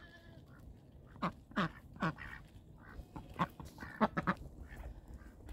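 Domestic ducks quacking softly while they feed: about seven short quacks, scattered singly and in a quick cluster of three near the end.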